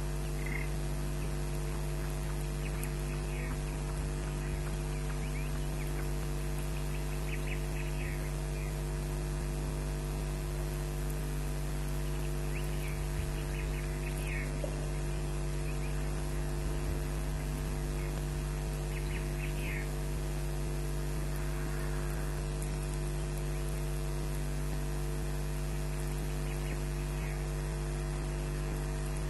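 Steady electrical mains hum from the nest-camera audio, with faint, short, high chirps coming in small clusters several times: the 'egg noise' from under an incubating osprey, the sound of a chick calling from inside its egg before hatching.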